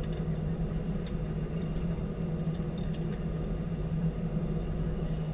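Cabin noise inside a Boeing 737-800 rolling on the ground after landing: the engines and airframe give a steady low hum with a constant drone, and a few faint ticks sound now and then.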